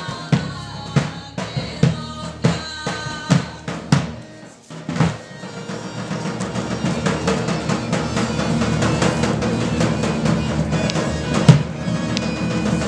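Live Balkan folk dance music: a large double-headed bass drum (tapan) beating about twice a second under a melody line. The music drops away briefly about four seconds in, then comes back fuller and louder as the whole band plays on.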